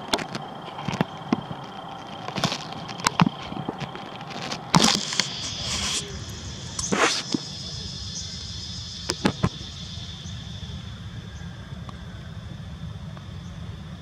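Outdoor ambience: a steady low rumble and a high, steady insect drone, broken by scattered sharp clicks and crackles. The loudest is a crackling burst about five seconds in.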